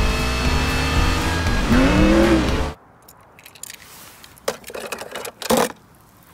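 Film soundtrack of race car engines with music, which cuts off abruptly a little under three seconds in. Then quiet rustling and a few clicks of a plastic toy car being handled, with one sharp clack about five and a half seconds in.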